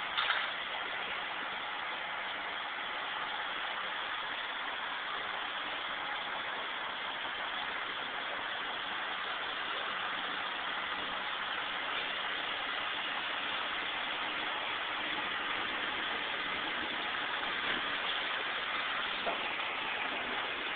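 Delivery truck's engine running steadily, with a few faint knocks about a second in and near the end.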